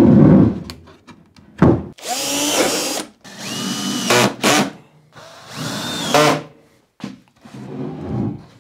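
Cordless drill driver driving screws into an OSB shelf: three short runs of the motor whining up, each about a second long. A loud low thump comes right at the start.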